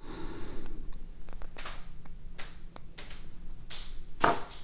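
Small metal clicks and scrapes of a 1/4-inch ratchet's pawl and parts being worked into the head with a thin assembly tool. About four seconds in comes a louder sharp click as the spring-loaded steel detent ball shoots out of the ratchet head.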